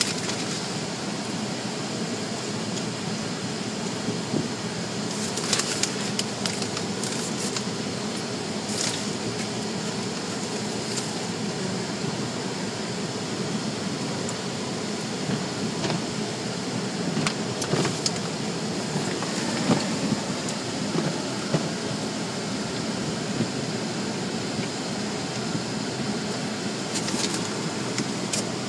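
Automatic car wash heard from inside the car: a steady wash of water spray and soapy cloth strips rubbing and slapping over the windshield and body, with a few sharper slaps now and then.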